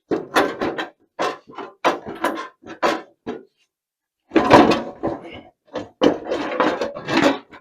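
Tractor sheet metal clanking and rattling in irregular bursts of sharp metal knocks as the loosened nose cone is worked free. The clatter runs longest about halfway through and again near the end.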